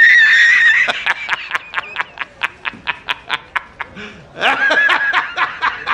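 A man laughing hard: a high drawn-out cackle, then a rapid run of short 'ha' bursts at about five a second, with a second drawn-out cackle about four seconds in. This is the J. Jonah Jameson laughing meme, dropped in as a comic sound effect.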